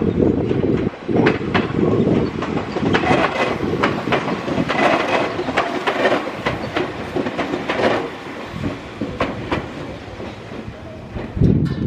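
A Meitetsu electric train passing close by, its wheels clacking repeatedly over rail joints, with wind buffeting the microphone, strongest at the start and near the end.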